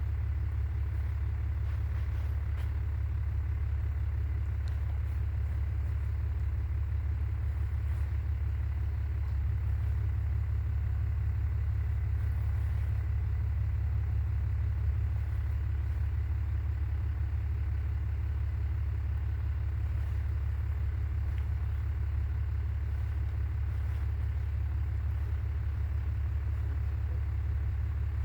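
Vehicle engine idling, a steady low rumble that holds unchanged throughout.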